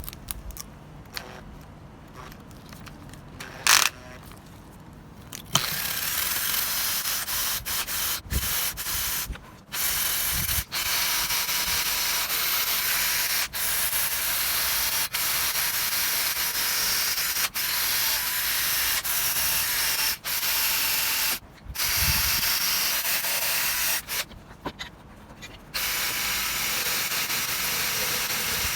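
Rusty old wrench being abraded with a power tool to strip the rust: a steady hissing grind starts about five seconds in and runs on, broken by several short gaps. A single sharp knock comes a few seconds before it.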